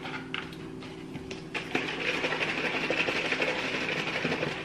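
An Oatly oat milk carton being handled, with a few light knocks and then a rapid, even, rhythmic noise over the last three seconds or so.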